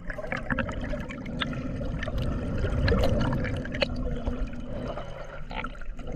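Water splashing and gurgling, with many small scattered clicks.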